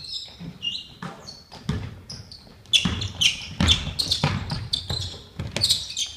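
A basketball dribbled on a wooden gym floor, a run of sharp bounces that grow louder about three seconds in, with short high squeaks from sneakers on the court.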